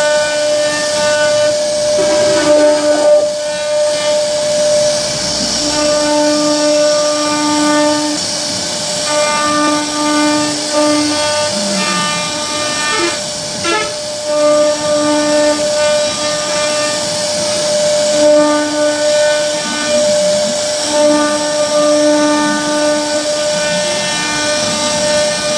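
CNC router carving a wooden door panel: the spindle holds one steady high whine over the hiss of the bit cutting wood. A lower hum from the drive motors starts and stops every second or two as the head moves along the pattern.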